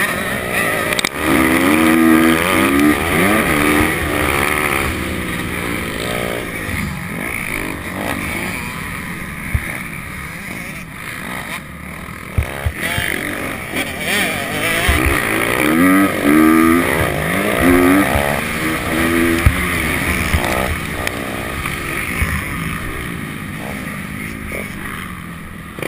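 Honda CRF250R four-stroke single-cylinder motocross engine, heard close up while riding, its revs rising and falling in sweeps, most plainly about two seconds in and again from about fifteen to twenty seconds in.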